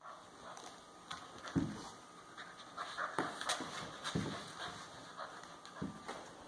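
Central Asian shepherd puppy panting as it mouths and tugs a knotted rope toy, with light clicks and four dull thumps on a wooden floor.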